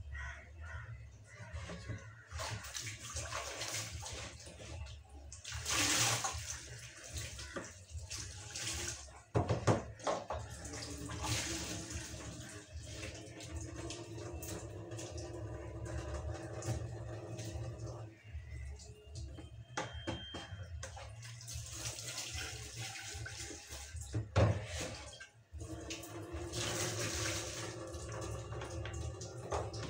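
Kitchen tap water running and splashing into a plastic basin as dishes and a plastic flask are rinsed by hand. Two sharp knocks of plastic and utensils stand out, about nine and twenty-four seconds in.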